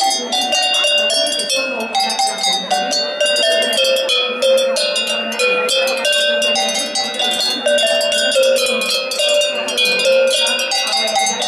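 A row of metal cowbells of graded sizes, hung from a wooden pole and struck rapidly by hand to play a tune. Each bell rings at its own pitch.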